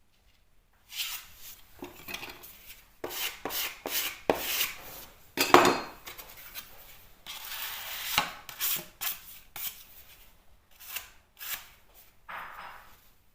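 Irregular scraping, clicking and knocking of hand tools being worked, with a sharp knock about five and a half seconds in.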